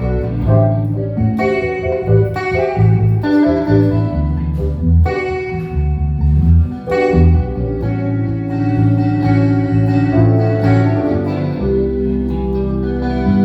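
Instrumental band jam: sustained keyboard chords over a bass line that moves every second or so, with light percussion.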